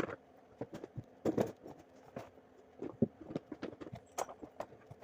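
Irregular light knocks and taps of hard objects on wood, a few each second, with a louder pair about a second and a half in.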